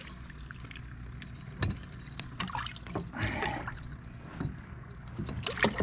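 Water splashing and dripping around a flathead catfish held by the jaw at the surface beside a kayak as it is released, with a louder splash about three seconds in and a few light knocks.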